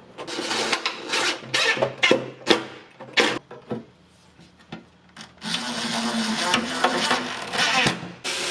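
Cordless DeWalt drill driving screws through sheet-metal strips into the door frame: several short spurts of the motor, a pause of about two seconds, then a steadier run of about three seconds near the end.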